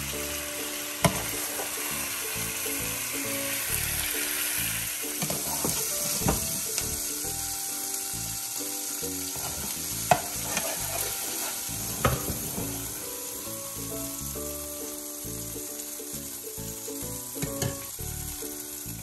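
Chicken fajitas sizzling in a hot frying pan, with a few sharp clicks of a metal serving spoon against the pan and serving dish. Soft background music plays underneath.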